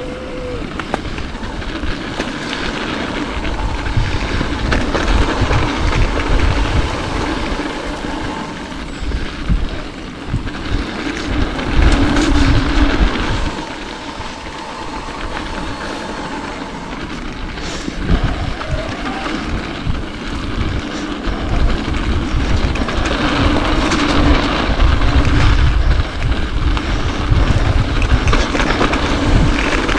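Mountain bike riding down a trail: a steady rush of wind on the ride-along camera's microphone and the rumble of tyres on dirt, with the bike rattling and clicking throughout. It grows louder and eases off several times as speed changes.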